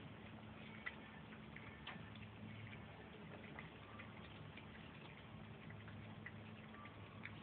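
Near silence: a faint steady low hum with a few soft ticks, about one and two seconds in.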